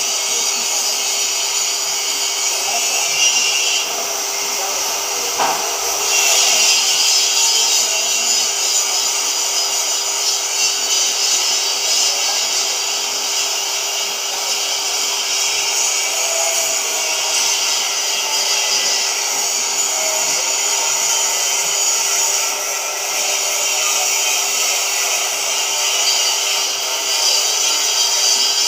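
Oxy-fuel cutting torch on a CNC gantry cutting machine, hissing steadily as it burns through thick steel plate, with a faint steady hum underneath.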